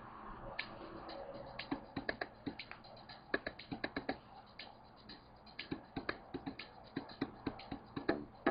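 A run of sharp percussive clicks and taps, uneven at first and growing denser near the end, over faint background music.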